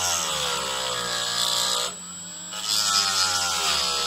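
Handheld rotary tool with a fine grinding bit grinding the head off a sewing-machine badge pin: a motor whine whose pitch sags and recovers as the bit bears on the metal, over a high grinding hiss. The grinding breaks off for about half a second near the middle, then starts again.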